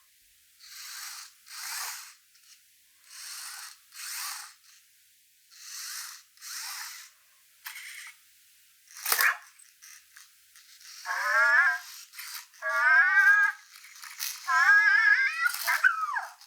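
Anki Cozmo robot's small speaker playing a programmed sneeze routine: paired breathy hisses repeating about every second and a half, a sharp sneeze about nine seconds in, then warbling electronic chirps.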